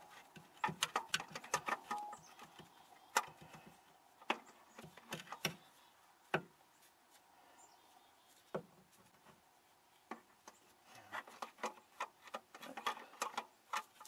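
Irregular sharp clicks and metallic knocks of hand tools and fasteners against metal as a starter motor is worked on from underneath a car. The clicks come in a cluster near the start, scattered single knocks through the middle, and another cluster near the end.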